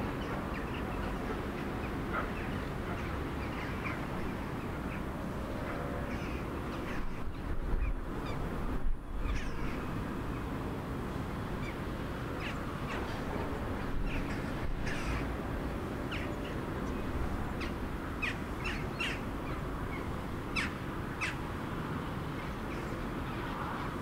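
Village outdoor ambience: a steady low background rumble with birds calling now and then, including a run of short high chirps in the second half. There is a louder low swell about eight seconds in.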